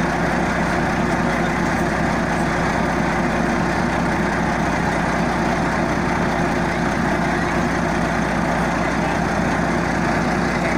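Tracked armoured vehicle's engine idling steadily, close by.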